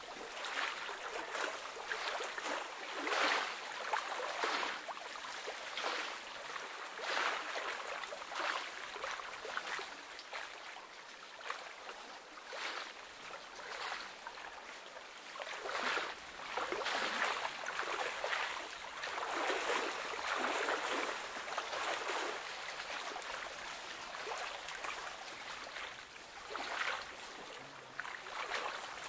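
Small lake waves lapping and splashing against a stony shore, rising and falling in irregular swells every second or two.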